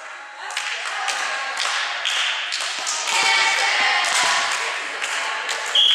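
Volleyball players' voices calling and scattered taps and thuds of a ball bouncing and hands clapping, with the echo of a sports hall. Near the end the referee's whistle blows one short steady note, the signal to serve.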